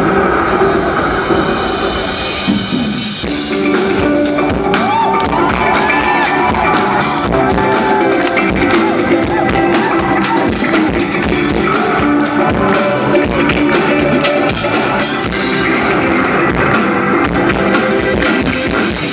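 A live band playing a song, loud and without pause: drum kit and electric guitar, with a melody gliding up and down through the middle.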